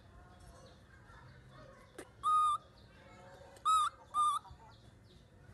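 Baby macaque giving three short, high, steady-pitched calls, one about two seconds in and two close together about a second and a half later, just after a single sharp click.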